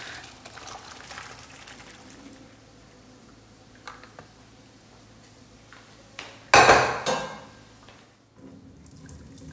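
Cooked penne being drained from a metal pot into a plastic colander: quiet handling with a few light clinks, then one short, loud clatter of the pot about six and a half seconds in. Near the end, a faint steady trickle of the cooking water running out into the sink.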